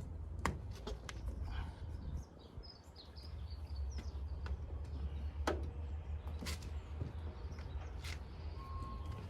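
A few sharp taps and knocks as a rubber seal is pushed and knocked into a van's vent window frame, over a steady low rumble. Birds chirp briefly in the middle, and a repeating electronic beep starts near the end.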